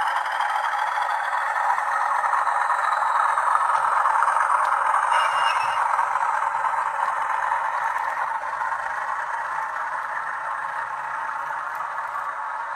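OO gauge model Class 40 diesel locomotive with a TTS sound decoder running past. Its small onboard speaker plays the diesel engine sound over the rattle of wheels on the track. The sound is loudest about four seconds in as the locomotive passes, then fades as the wagons follow.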